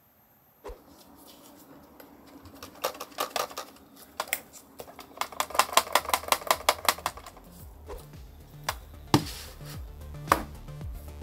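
Something loose rattling inside a Late 2009 Mac mini's aluminium case as the unit is tilted and shaken: a quick run of small clicks and clatters, densest about five to seven seconds in. A couple of single knocks follow near the end.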